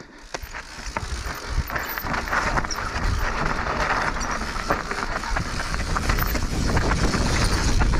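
Mountain bike descending a rough dirt trail: tyres rolling and the bike rattling over bumps. The noise builds steadily as it picks up speed.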